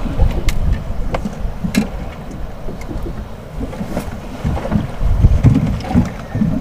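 Wind buffeting the microphone on an open fishing boat, a loud, uneven low rumble, with water slapping at the hull and a few sharp knocks and clicks on board.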